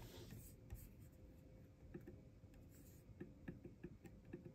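Faint, irregular clicks and taps from about two seconds in: a finger clicking the MacBook Pro's trackpad during first-time setup. A faint steady hum sits underneath.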